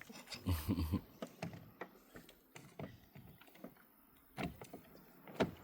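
Scattered knocks and creaks of a bamboo river raft and its push-pole being worked in shallow water, with a louder low thump about half a second in.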